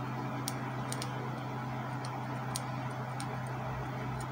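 Faint, irregular light ticks of a flathead screwdriver tip scraping the metal contact pads of a Canon ink cartridge, cleaning off crust that may keep the printer from recognising the cartridge. A steady low hum runs underneath.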